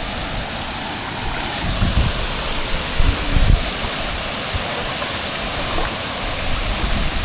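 Waterfall rushing with a steady, even roar of falling water. A few brief low bumps come through about two and three and a half seconds in.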